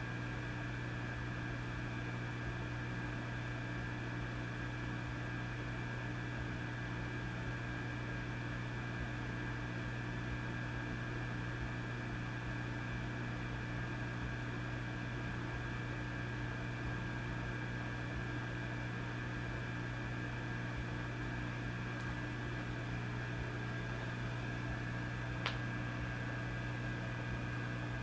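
Vintage tube amplifier idling with a steady low hum and a hiss of static, with a few fainter higher steady tones over it. One brief click near the end.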